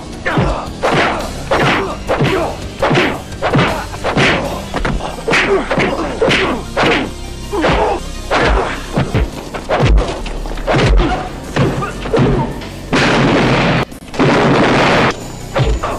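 Movie fight sound effects: punches and blows landing one after another, about one or two a second, over music with a steady bass. Near the end come two longer crashing noises.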